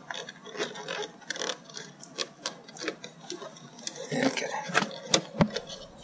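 Plastic interior door handle assembly of a 1999 Toyota Sienna being pressed and worked into the door panel by hand: irregular plastic clicks and taps, with two sharp, louder clicks about five seconds in.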